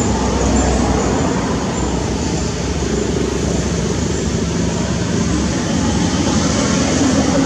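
Steady rumble and hiss of road traffic, unbroken throughout.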